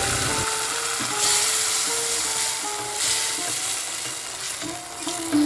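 Mashed ridge gourd and tomato sizzling in hot mustard oil in a kadai, stirred with a spatula. A plucked-string background tune plays over it.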